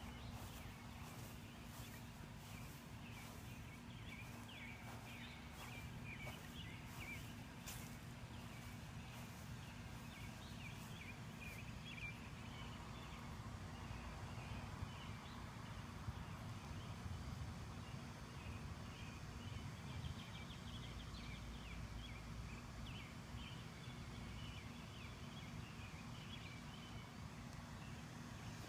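Faint outdoor ambience: small birds chirping on and off over a low, uneven rumble, with soft clicks and rustles in the first several seconds.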